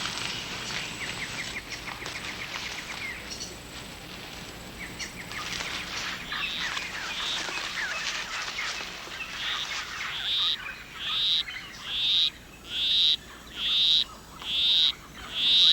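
Rainforest insects and birds trilling and chirping. From about ten seconds in, a male poison arrow frog gives his monotonous courtship song: a steady series of short high notes, about one a second, growing louder.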